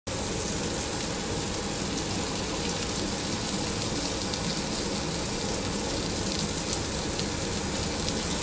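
Food frying in a pan: a steady sizzle with faint scattered pops.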